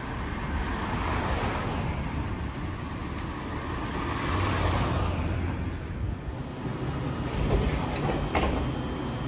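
Cars and vans passing on a city street, their tyre noise swelling twice as vehicles go by. Then a Hiroden 5100-series Green Mover Max low-floor tram stands at the platform, with a low steady hum and a few sharp clicks near the end.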